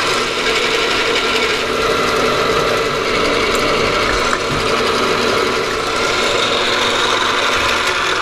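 Milling machine running with a drill bit boring into heat-treated 4140 steel: a steady mechanical whir with the grinding of the cut.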